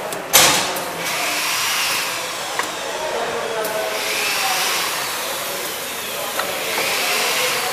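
Factory machinery running with a steady whirring hiss. A short loud burst like air released from a pneumatic valve comes about half a second in, and a few light clicks follow.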